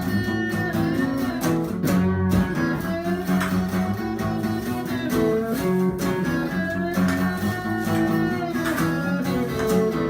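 Instrumental break in a country-style song: guitars playing a melody over a steady accompaniment.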